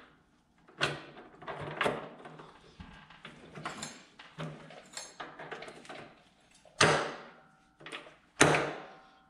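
Heavy metal tractor parts being handled and fitted together: a series of clanks and clinks, the two loudest near the end, each ringing out briefly.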